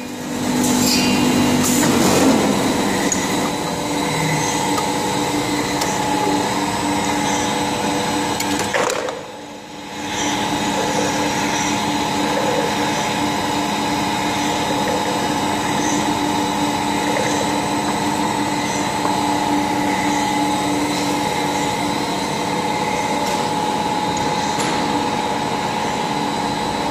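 PE prestressed corrugated pipe extrusion line running: a steady mechanical hum from its motors and drives, with a few held tones. It drops away briefly about nine seconds in, then carries on unchanged.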